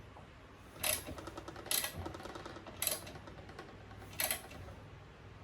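Ratchet wrench clicking in quick runs as mount bolts on a mini bike frame are tightened, with four sharper clicks or knocks about a second apart.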